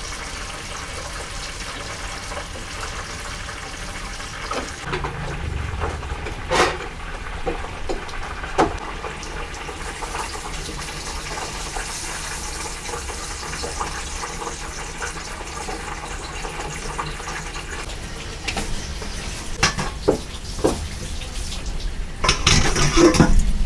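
A steady hiss with a few scattered clicks and knocks of kitchen work. Near the end, water runs from a tap and splashes over stainless-steel colanders being rinsed.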